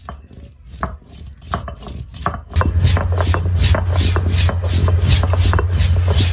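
Stone roller of an ammi grinding stone rolled back and forth over wetted black peppercorns and cumin, crushing them with a gritty rubbing. About two and a half seconds in, it becomes a loud, steady rumble with a quick, even rhythm of strokes.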